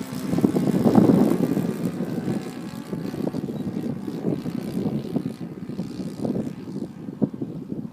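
Engine and propeller of a radio-controlled Yak 54 aerobatic model plane in flight, loudest about a second in and thinning out near the end.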